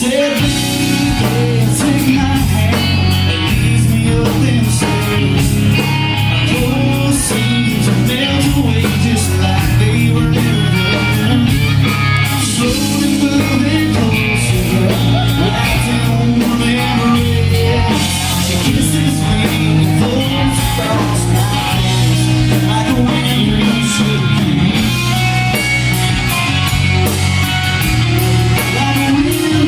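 Live southern rock band playing, guitar to the fore over bass, at a steady loud level.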